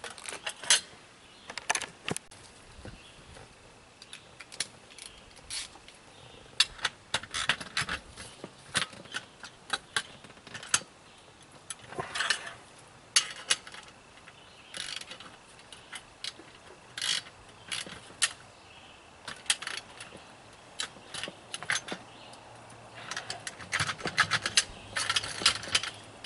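Metal exhaust parts and their bolts, nuts and washers being handled and fitted together: irregular sharp clicks and clinks, coming in small clusters and thickest near the end.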